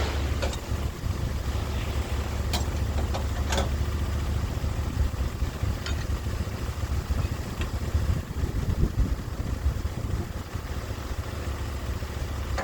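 Sawmill's engine running steadily at a low hum, with a few sharp clicks and knocks in the first few seconds and a couple more later.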